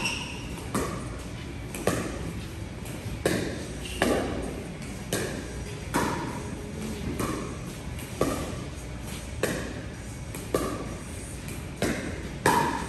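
Pickleball paddles hitting a plastic pickleball back and forth in a long rally: sharp pops about once a second, each ringing briefly in the large hall.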